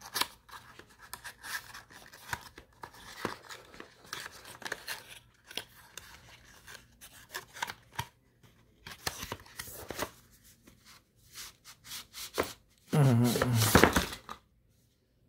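Cardboard box insert and paper packaging being handled by hand, with a paper tab peeled back: irregular scratchy rustles, scrapes and small clicks.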